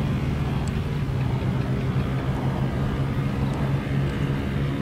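A steady low, engine-like hum that runs unchanged, with a few faint ticks over it.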